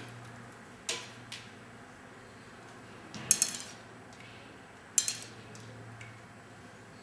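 Sharp metallic clinks and clicks from archery gear being handled: two light ticks about a second in, then two louder clusters of clinks about three and five seconds in.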